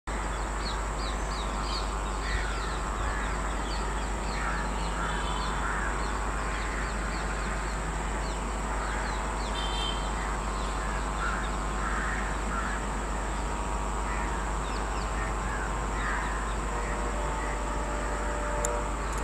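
Crows cawing again and again, with shorter, higher chirps of other birds, over a steady outdoor hiss. Near the end the steady drone of an approaching WDP4D diesel locomotive begins to come in.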